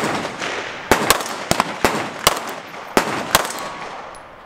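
Semi-automatic handgun firing a string of shots, about half a dozen loud reports roughly half a second to a second apart, with fainter pops between them and a short echoing tail after each.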